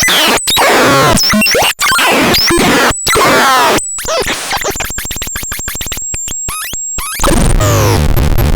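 SWAMPSYNTH synthesizer making chaotic, glitchy noise: squelchy chirps and pitch sweeps broken by sudden cut-outs. About halfway it turns into a fast stuttering run of clicks over a steady high whistle, and near the end into a dense low buzz.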